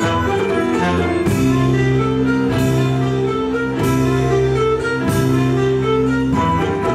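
Instrumental ensemble music: held low chords that change about a second in and again near the end, with a struck accent about every one and a quarter seconds.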